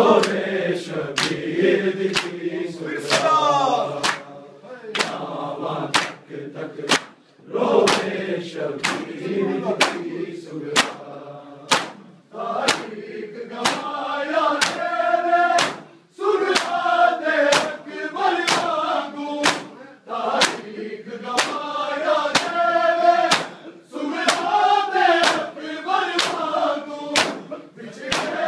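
A large group of men chanting a mourning noha in unison while beating their chests by hand in matam. The chest strikes land as sharp slaps about two a second, in time with the chant.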